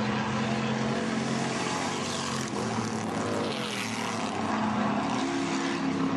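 Hobby-class stock car engines running on a paved oval, several cars at once making a steady droning. A higher engine note joins about five seconds in.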